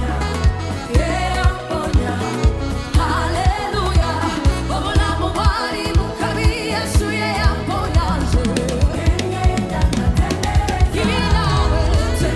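Gospel worship song: singing over a band with a steady drum beat.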